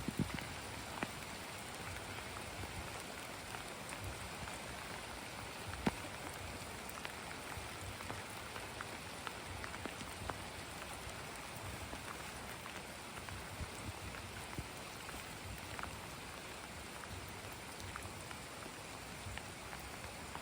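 Steady rain falling, an even hiss with scattered drips and ticks. There is one sharper drop about six seconds in.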